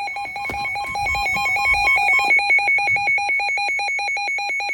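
Weather alert radio's electronic alarm beeping rapidly, about eight high, shrill beeps a second: the alert that a severe thunderstorm warning is being broadcast. For the first two seconds a second beeping pattern overlaps it.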